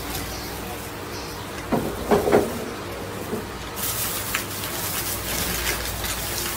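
A clear plastic carrier bag rustling and crinkling as a hand rummages in it among packaged food. A brief louder bump comes about two seconds in.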